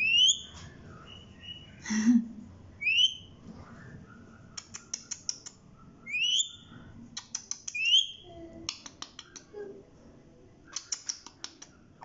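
Rose-ringed parakeet giving short rising whistles, about four of them, with a harsher call about two seconds in. Three bursts of rapid sharp clicking come between the whistles.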